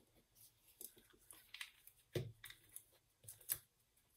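Handling of a small ink bottle: a few light clicks and taps as its dropper cap is twisted off, with two louder knocks about two seconds in and near the end.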